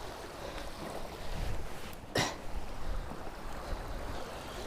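Strong wind rumbling on the microphone over lapping waves, with one short sharp click about two seconds in.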